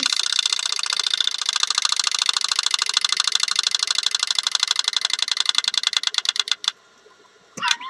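Wind-up chattering teeth novelty toy clattering: a rapid train of small plastic clicks that grows slightly sparser and stops abruptly about a second before the end.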